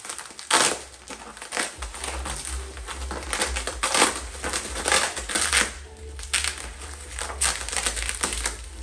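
Plastic bubble wrap crinkling and crackling in irregular rustles as it is pulled and unwrapped from a part by hand.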